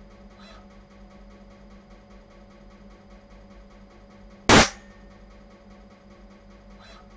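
A single loud, sharp snap about four and a half seconds in, over a steady low hum.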